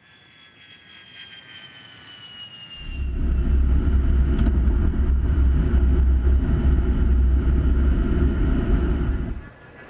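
A-10 attack jet's twin turbofan engines: a high whine that slowly falls in pitch, then a loud low roar that starts about three seconds in and cuts off abruptly near the end.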